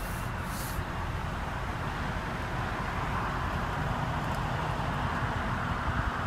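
Steady low rumble and hiss of vehicle noise.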